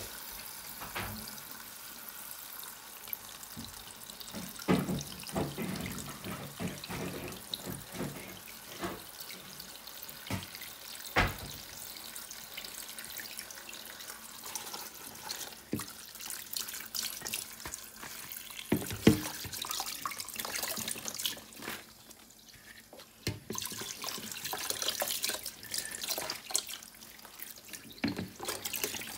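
Kitchen tap running into a sink of water as fresh leafy greens are washed, with splashing and swishing as the leaves are handled. A few sharp knocks stand out, the loudest about a third and two thirds of the way through.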